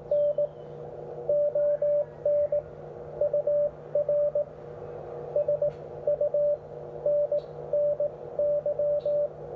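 Morse code (CW) received on the 17 m amateur band, coming from a Xiegu X6100 HF transceiver: a single keyed tone sounding in dots and dashes over band hiss, with a fainter steady tone just below it.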